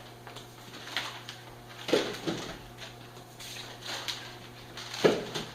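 Shrink-wrapped packs of beer being set down and stacked one after another: a series of dull thumps and rustles about a second apart, the loudest near the end.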